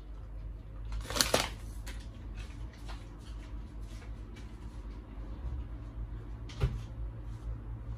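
Plastic yogurt pot and spoon being handled as the yogurt is scooped out: a rattling clatter about a second in, scattered small clicks, and one sharp knock near the end, over a low steady hum.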